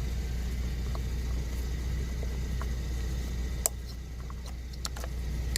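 A few light plastic clicks as a replacement ignition coil pack is pushed into place on a spark plug, with one sharper click about three and a half seconds in, over a steady low hum.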